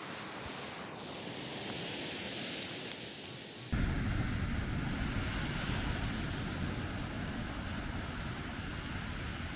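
Ocean surf on a sandy beach, a steady hiss of breaking waves. About four seconds in it turns suddenly louder, with a deep wind rumble on the microphone.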